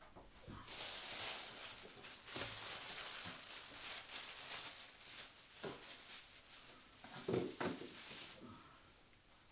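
Thin plastic wrapping bag crinkling and rustling as it is handled with a styrofoam packing insert, with a few dull knocks, the loudest near the end.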